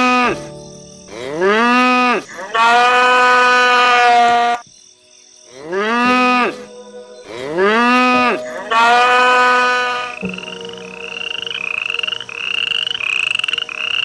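An animal's long, pitched calls that rise and then fall, six of them in two groups of three, each lasting one to two seconds. From about ten seconds in they give way to short, high, rising calls repeated about every two-thirds of a second.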